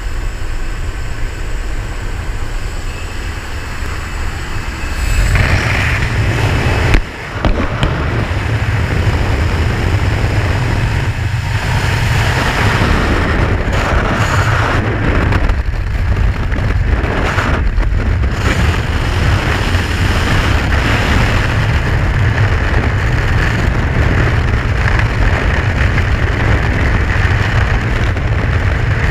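Jump-plane cabin noise at the open door, engine and rushing air, then from about five seconds in, loud steady freefall wind blasting over a helmet-mounted camera, with a brief drop about seven seconds in.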